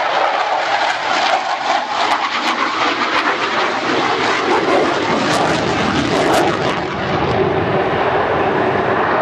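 Eurofighter Typhoon jet engines running loudly as the fighter flies its display, a dense rushing noise with a deeper rumble building about halfway through.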